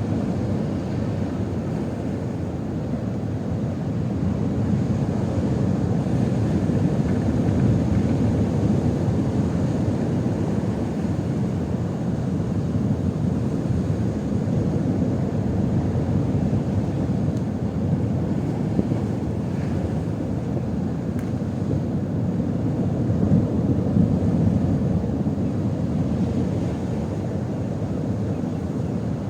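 Strong wind buffeting the microphone: a continuous low rumble that swells and eases with the gusts.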